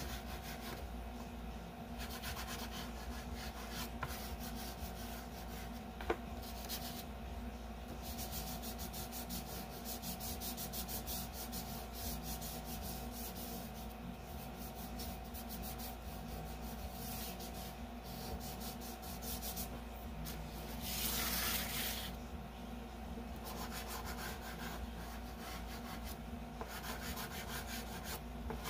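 Soft chalk pastel scratching and rubbing on paper as the background is coloured in and blended with the fingertips, in uneven stretches with a louder stretch about two-thirds of the way through. A steady low hum runs underneath, and a single sharp click comes about six seconds in.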